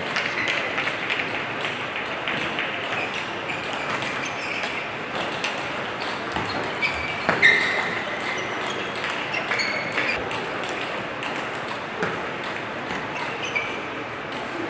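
Table tennis rallies: the ball clicking off bats and table in quick exchanges, each hit ringing briefly with a high ping, with one louder sharp knock about seven and a half seconds in.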